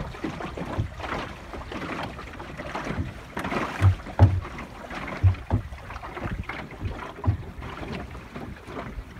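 Water washing and lapping along the hull of a small wooden sailboat under sail, with wind on the microphone. A few short low thumps of water against the hull come near the middle.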